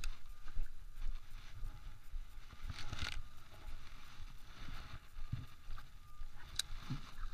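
Quiet shoreline ambience: a low rumble with soft handling clicks and thumps from a baitcasting rod and reel being worked, and one sharp click about six and a half seconds in.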